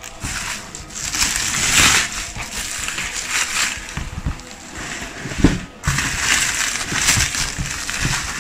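Plastic wrapping and a cardboard pillow box being handled: rustling and crinkling in uneven bursts, with a short knock about five and a half seconds in.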